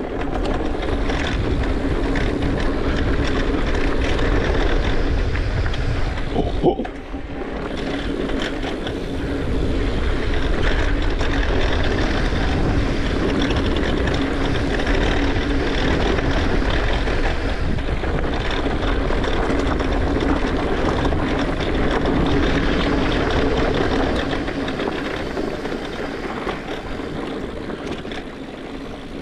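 Continuous rush of wind and tyre noise from a YT Decoy mountain bike riding a dirt trail, picked up by an action camera on a full-face helmet's chin. A sharp knock comes about seven seconds in, and the noise eases a little near the end.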